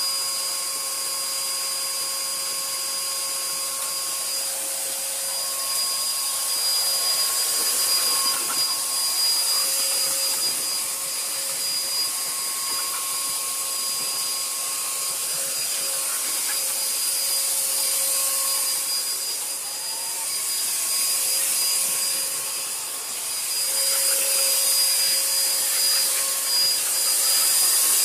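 Motorized fogging sprayer running steadily, its high hiss of disinfectant mist carrying a motor whine that comes and goes, a little louder in stretches.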